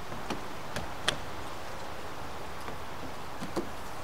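A few light clicks and taps from an RV window being handled and fitted into a cutout in a van's side wall, over steady background noise.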